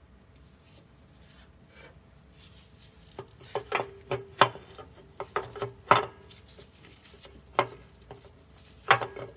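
Melling M-390HV oil pump clinking and knocking against the crankshaft nose and engine block as it is pushed and turned to line its rotor flats up with the crankshaft flats. A string of sharp metallic clicks and knocks begins about three seconds in, the strongest with a short ring.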